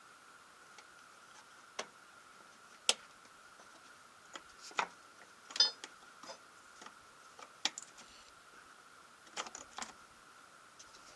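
Scattered light clicks and taps of small parts and tools being handled, about a dozen at uneven intervals, one with a brief metallic ring, over a faint steady high hum.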